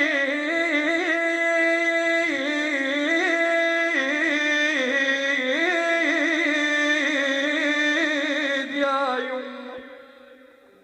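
A man's solo voice chanting a long, drawn-out melismatic cry in an Iraqi Shia mourning lament, likely the sustained 'yumma' (mother). It is held steady at first, then wavers through ornamented turns, and fades away near the end.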